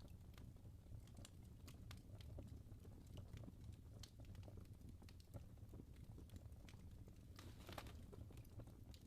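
Wood fire burning in a fireplace, crackling softly: irregular small pops and snaps over a low steady rumble, with a brief flurry of crackles about three-quarters of the way through.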